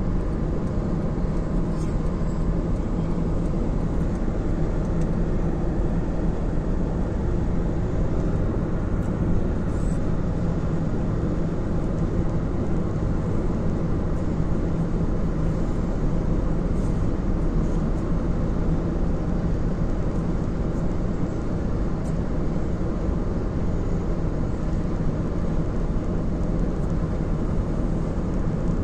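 Steady road noise of a car travelling at motorway speed, heard from inside the cabin: an even rumble of tyres and engine with a faint low hum, unchanging throughout.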